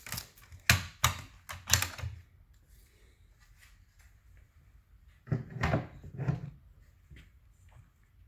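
Sharp knocks and clacks of cabinet parts being handled and fitted together: a quick run of four or five in the first two seconds, then another cluster a few seconds later.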